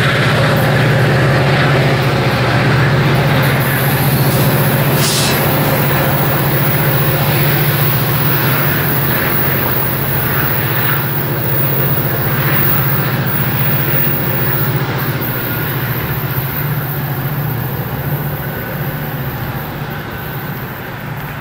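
A Metrolink diesel locomotive's engine drones steadily as the train pulls away, fading slowly over the last few seconds.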